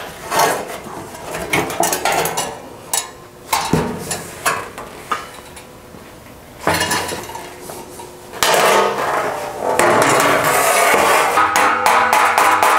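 Thin sheet-steel fender and metal clamps clanking and knocking as they are handled and set down on a steel table, in scattered sharp hits. In the last few seconds a louder, continuous sound takes over.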